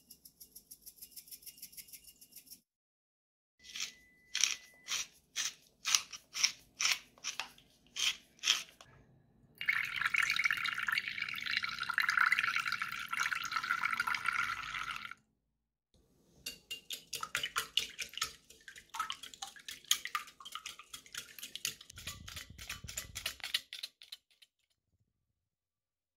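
Salt, then black pepper, ground over raw eggs in a glass bowl. The salt comes as fine rapid ticks, the pepper as about ten sharp clicks, roughly two a second. Then milk is poured into the bowl in a steady splashing stream lasting about five seconds, and the mixture is beaten briskly with quick, repeated strokes.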